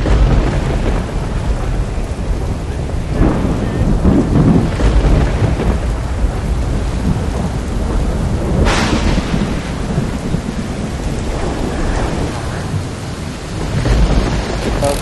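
Wind gusting and rumbling on the microphone over the rush of surf, with a short sharp hiss about nine seconds in.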